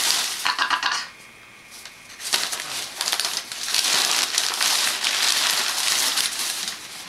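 Brown packing paper crinkling and rustling loudly as it is grabbed and thrashed about. There is a short lull about a second in, then steady crinkling until near the end.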